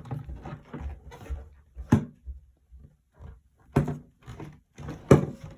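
Objects being handled and set down on a table: three sharp knocks, about two seconds, four seconds and five seconds in, with softer handling noise between.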